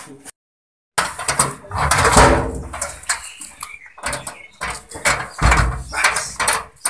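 Key and lock rattling on a metal door, with many short clicks and clatters, starting about a second in after a moment of silence, with wind buffeting the microphone now and then.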